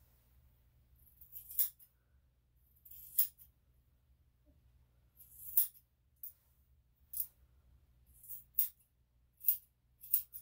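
Grooming scissors snipping the hair on a Shih-Tzu's face: about nine separate crisp snips, roughly a second apart.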